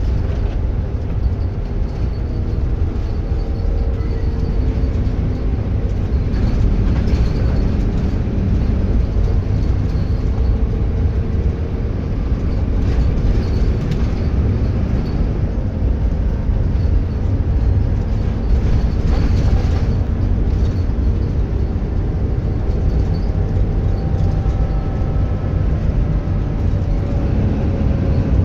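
Bus engine running steadily under way, a continuous rumble with the turbocharger's faint whistle gliding slowly up and down in pitch.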